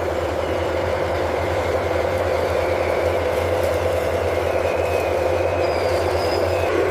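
RC model construction machines running steadily, a continuous engine-like hum with a faint whine above it.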